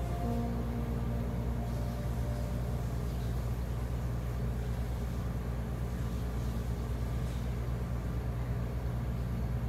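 Steady low hum of commercial kitchen equipment, even in level throughout, with no clear knife strokes standing out.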